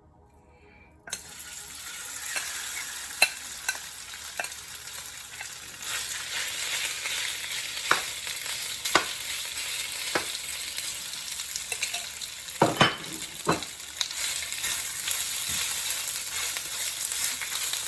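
Marinated chicken pieces sizzling in hot oil in a frying pan. The sizzle starts about a second in and holds steady, with a few sharp clicks from stirring in the pan.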